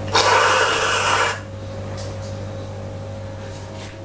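A can of whipped cream spraying: one hiss of just over a second that starts sharply and cuts off suddenly, over a faint steady low hum.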